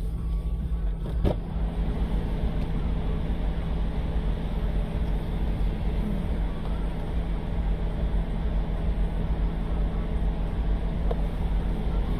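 Car engine idling steadily, heard from inside the cabin, with one faint click about a second in.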